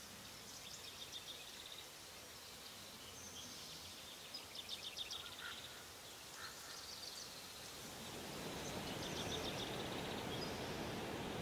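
Woodland birds singing short, quick trilled phrases several times over a faint background hiss. About 8 seconds in, the steady rush of a waterfall rises in under them and continues.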